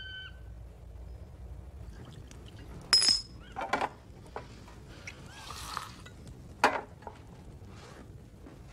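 Glass clinking as a glass decanter and glasses are handled on a drinks tray, a few sharp ringing chinks, the loudest about three seconds in and again near seven seconds, with a short splash of liquid being poured in between. A brief bird call sounds at the very start.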